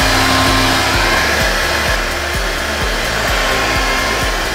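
Handheld hair dryer running: a steady rush of blown air with a faint motor whine underneath.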